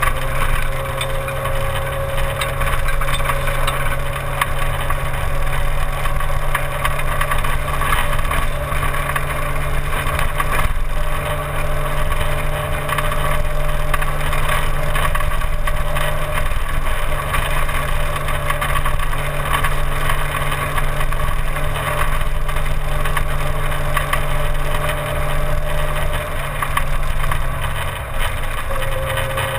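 Simca 1000 rally car's rear-mounted four-cylinder engine running hard at speed, its note holding fairly steady with only small rises and falls, under a dense rush of road and wind noise.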